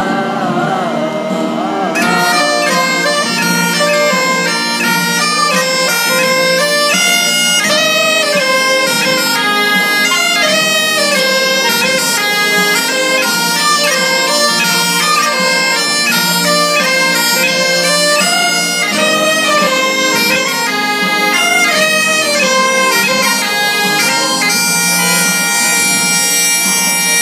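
Bagpipes playing a tune over their steady drones; the full tune comes in about two seconds in, and it ends on a long held note.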